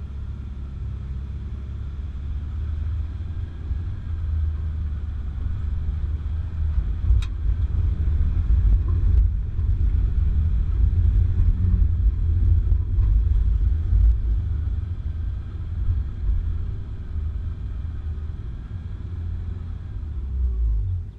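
Four-wheel-drive vehicle driving on a track: a steady low engine and road rumble, with one sharp click about seven seconds in.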